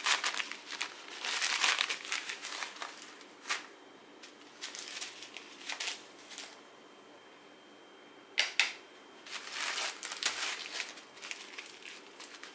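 Small zip-lock plastic bags full of resin diamond-painting drills crinkling and rustling as they are handled and spread out on a desk, the drills shifting inside. Irregular bursts of rustling, with a short lull past the middle and a sharp crinkle just after it.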